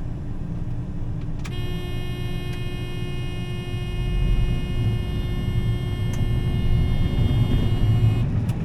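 Combine harvester running with a steady low rumble. About a second and a half in, a steady buzzer-like warning tone starts, holds for about seven seconds, then cuts off.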